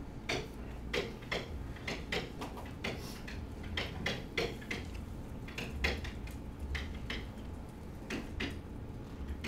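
Pen stylus tapping and scraping as words are handwritten: a string of irregular short clicks over a low steady hum.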